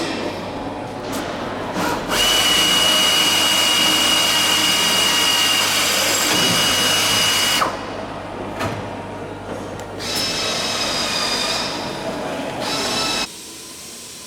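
A power drill drilling holes in aircraft airframe metal, running in bursts: one long steady high whine of about five and a half seconds starting about two seconds in, then two shorter runs near the end.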